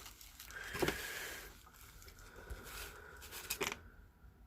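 Handling of product packaging: soft rustling with a few sharp plastic clicks, one about a second in and a cluster near three and a half seconds, as a stubborn package is worked open.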